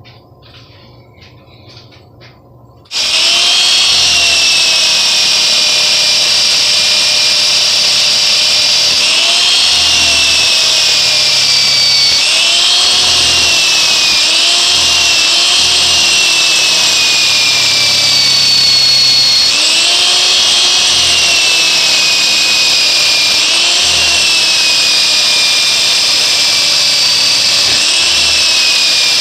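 A handheld power tool with a wire brush starts about three seconds in and runs steadily, scouring rust off the spikes of a steel mattock. Its motor whine dips in pitch and recovers again and again as the brush is pressed onto the metal.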